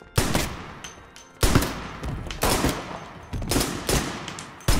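Rifle shots fired in a large church, several sharp reports a second or so apart, each followed by a long echo.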